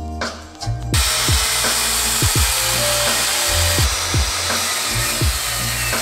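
An electric power saw starts cutting wooden boards about a second in and keeps cutting steadily, over background music with a bass beat.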